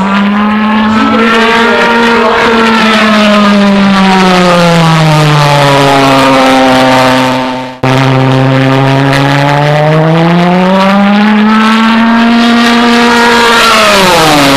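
Pulse-jet engine of a radio-controlled model jet buzzing loudly in flight, its pitch slowly rising and falling as the plane circles. About eight seconds in the sound briefly fades and cuts back in, and near the end the pitch drops sharply as the jet passes close by.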